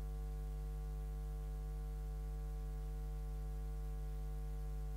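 Steady electrical hum from the microphone and sound system, a low buzz with a stack of overtones that holds unchanged through the pause in speech.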